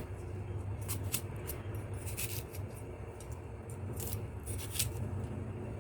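Kitchen knife cutting and scraping the seeds out of quartered pears, a few short crisp cuts and scrapes over a low steady hum.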